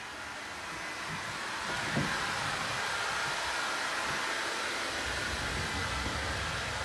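Steady rushing noise of blowing air, swelling over the first two seconds and then holding even, with a soft knock about two seconds in.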